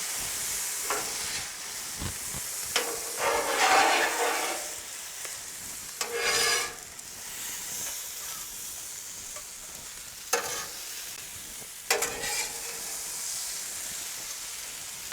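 Rice, chicken and vegetables sizzling in oil on a Blackstone flat-top griddle, with a steady hiss. Several louder scrapes of a spatula on the steel cooktop come as the food is stirred and tossed together.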